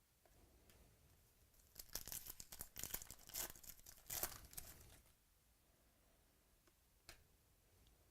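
Crinkly foil trading-card pack wrapper being torn open and crumpled by hand, a rustling crackle lasting about three seconds, followed later by a faint click.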